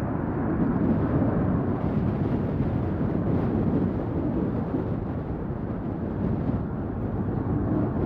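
Airbus A330-200 jet engines running at climb power as the airliner departs, a steady low rumble, mixed with strong gusty wind on the microphone.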